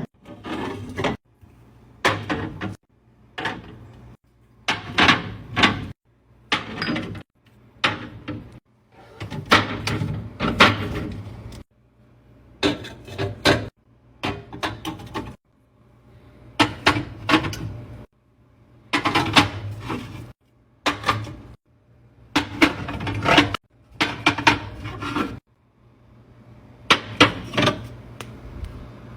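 Handling sounds of restocking snacks and a fridge: items, packaging and containers clattering, tapping and rustling as they are put in place. The sounds come in a string of short clips, each a second or two long, that cut off suddenly between them.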